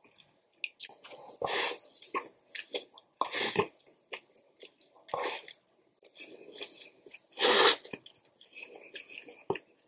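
Close-miked ASMR eating sounds: chow mein noodles slurped into the mouth in four loud hissing pulls, the loudest near the end, with wet chewing between.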